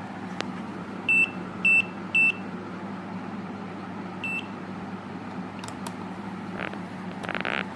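Digital clamp meter beeping: three short, loud high-pitched beeps about half a second apart, then a single fainter beep about two seconds later, as it is switched on and set to read current. A steady low hum runs underneath, with a few clicks and a brief rustle near the end.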